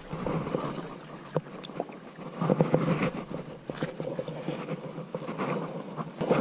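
Close handling noise as a freshly caught fish is put into a keep net among water hyacinth: rustling of stems and leaves, light splashing and scattered knocks, busiest about two and a half to three seconds in.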